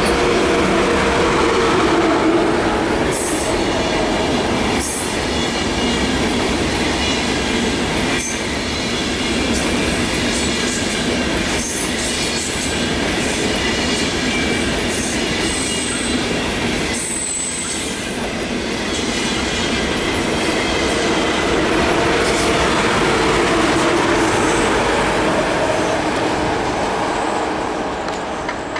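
ICE high-speed train rolling past close by: a steady rumble of wheels on rail with a high wheel squeal over it and an occasional sharp clack as the wheels cross rail joints. The sound fades as the train draws away near the end.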